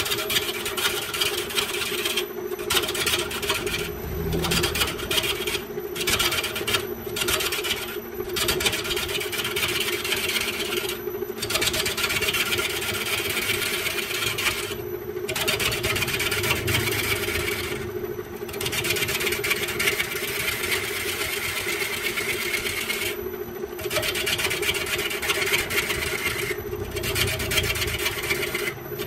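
Electric wood lathe running with a steady hum while a hand-held gouge cuts the spinning bamboo workpiece: a rough, hissing scrape, broken by about ten short pauses as the tool lifts off the wood.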